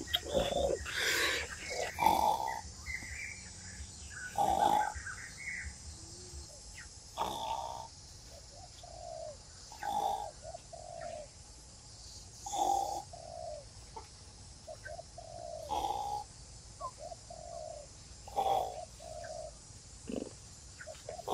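A bird calling over and over, one short call about every three seconds, several followed by a few quicker notes, over a steady high insect hiss.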